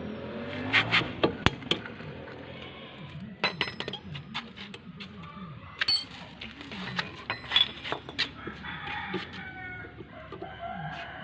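Chickens clucking, with short pitched calls throughout. Sharp clinks and knocks of metal run through it, the loudest about a second in and again near the middle.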